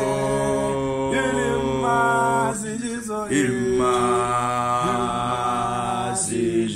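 A group of men singing a cappella in harmony, holding long chords that shift a few times, with a short break about three seconds in before the next long chord.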